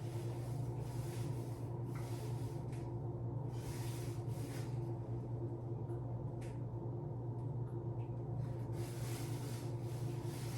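A steady low electrical hum with soft hissing, rustling noises that come and go every second or so.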